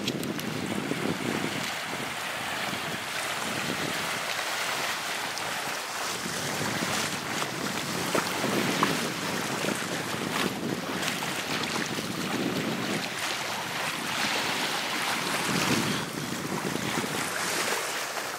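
Wind gusting across the microphone over small waves lapping at the shoreline.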